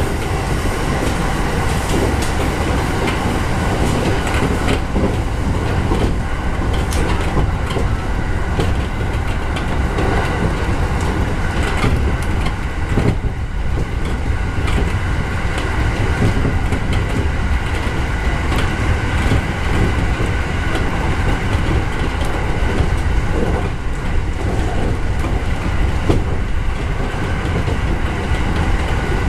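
JR 209 series electric commuter train running along the track, heard from inside the front car: a steady rumble of wheels on rail with clicks over the rail joints and a faint steady whine.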